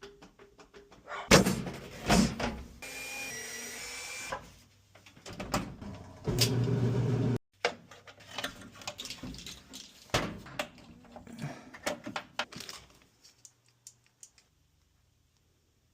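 Knocks and clatters of tools and metal parts being handled during a dryer repair, with two short runs of a motor: one just under two seconds long about three seconds in, and a louder hum of about a second near the middle that cuts off suddenly. It goes quiet about three seconds before the end.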